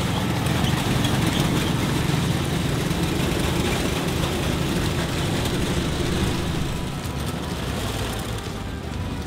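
Homemade tracked tank's engine running as the tank drives on pavement, a steady low drone that gets a little quieter about seven seconds in.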